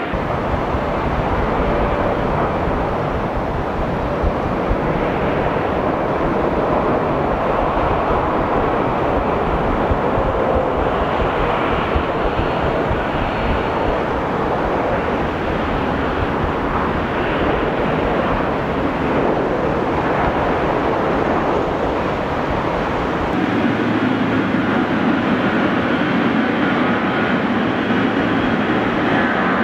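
Boeing 777-300 jet engines running loud through a landing and rollout, a dense rumble heavy at the low end. About 23 seconds in the deep rumble drops away and a steadier, lower-powered engine hum takes over as the aircraft taxis.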